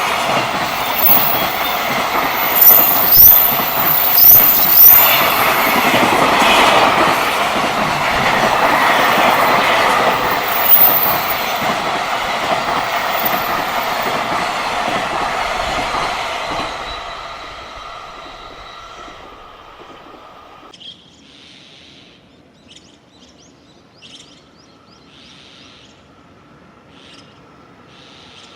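A JR Freight train running past, with high-pitched wheel squeal and wheels clattering in the first few seconds. The train's noise fades away after about 17 seconds, leaving birds chirping.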